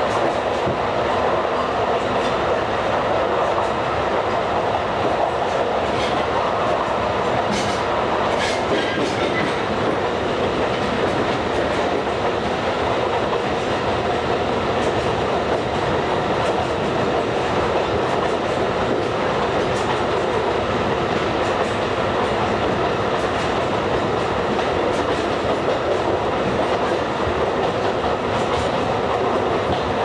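Alishan Forest Railway narrow-gauge train running steadily, with a continuous rumble of wheels on rail and a few sharp clicks about six to nine seconds in.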